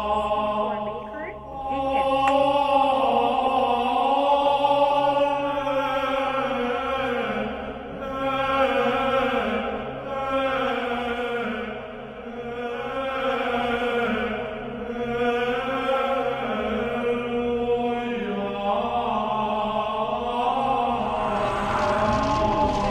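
Slow, chant-like choral music: voices hold long notes in swelling phrases a few seconds apart over a steady low drone. A rushing noise builds in near the end.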